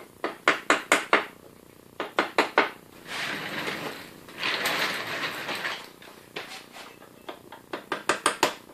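Quick runs of light, sharp hammer taps, four or five at a time, knocking the plastic plugs out of a wooden chair frame to reach the screws beneath. In the middle, a few seconds of rough scraping as the chair is shifted on the floor.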